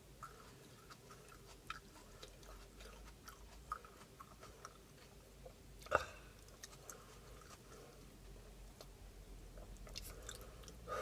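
A person chewing a thick-walled Komodo Dragon chilli pepper: faint, scattered wet mouth clicks, with one louder short mouth sound about six seconds in.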